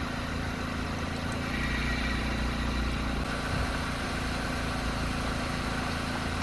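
Steady low hum of an idling engine, swelling a little louder for a couple of seconds about a second and a half in.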